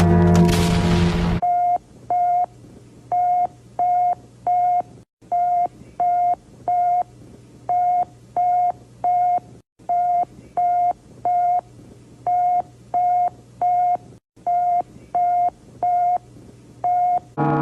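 Ringing gong-like music cuts off about a second and a half in, followed by about twenty short electronic beeps of one steady pitch, spaced unevenly, over a low steady hum.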